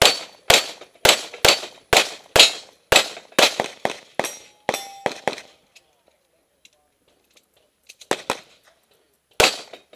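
A USPSA Open-division pistol fired in a fast string of about a dozen shots, roughly two a second, then a pause of a couple of seconds, then a few more shots near the end.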